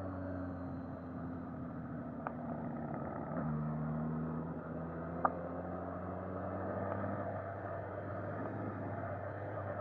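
Suzuki Katana's inline-four engine running steadily under way. Its note drops a step about three and a half seconds in. A sharp click comes about two seconds in, and a louder one about five seconds in.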